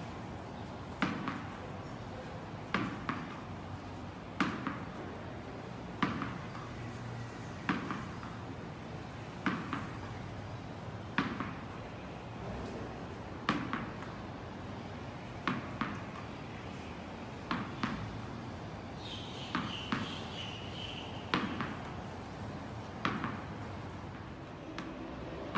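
Soft tennis ball thrown against a wall and bouncing on a concrete floor, over and over: a sharp tap about every two seconds, often a quick pair of taps as the ball strikes the wall and then the floor.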